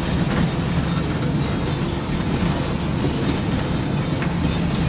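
Old school bus running: a steady low engine rumble and road noise, with a few short clicks.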